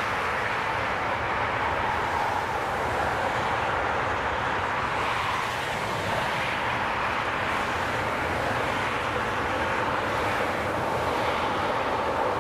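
Airbus A380 jet engines running on the landing roll: a steady roar with a faint high whine over it, growing slightly louder near the end as the aircraft comes closer.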